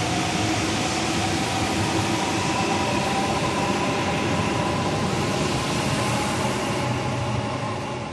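ICE 3 (class 403) high-speed electric multiple unit pulling out of the station and gathering speed: a steady rush of wheels and running gear with several steady whining tones over it. It fades near the end as the last car goes by.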